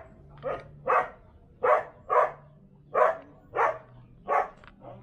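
A dog barking repeatedly, about seven barks with short even gaps between them.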